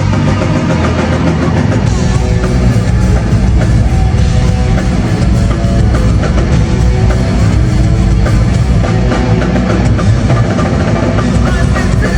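Live band music played loudly, with drums and guitar, recorded on a phone in the concert audience.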